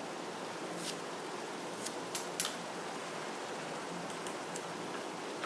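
A few short scratches and taps of a wax crayon on paper over a steady background hiss, the strokes bunched in the first half and a couple of light taps a little later as the crayon is lifted away.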